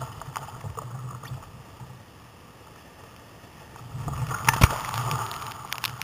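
Breaking surf washing around and over a sit-on-top kayak: a rush of water that eases off, then swells again about four seconds in as whitewater breaks over the deck. A couple of sharp knocks come as it hits, and a few more come near the end.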